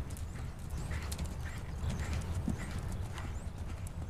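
Horse cantering on sand arena footing: soft, rhythmic hoofbeats over a steady low rumble.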